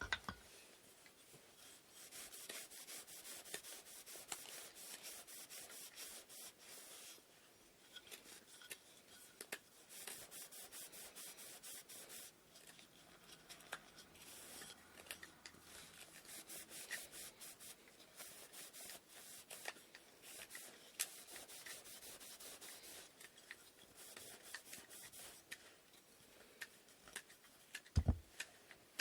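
Hand sanding of wooden inkle loom parts: runs of hissing sandpaper strokes with small clicks in between, and one dull knock near the end.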